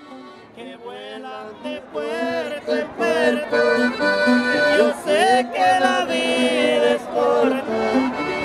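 Instrumental music fading in and growing louder over the first two seconds, a held, wavering melody over a steady low note.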